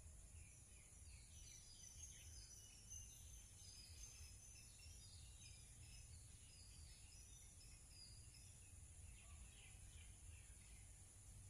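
Faint natural ambience: many small birds chirping and twittering, over a steady high-pitched hum and a low rumble.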